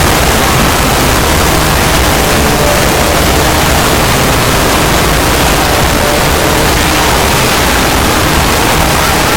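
Loud, steady wall of static-like noise with no distinct tones or beats: an audio clip sped up so far that it has turned into noise.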